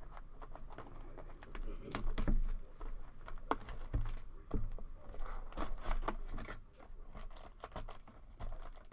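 Packaging of a trading card box being torn open and crinkled, with irregular small clicks and rustles as it is handled.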